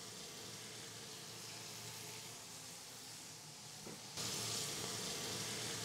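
Bison New York strip steaks sizzling in browned butter in a hot cast iron grill pan, a steady faint hiss that gets louder about four seconds in. The sizzle is the sign of a proper sear starting.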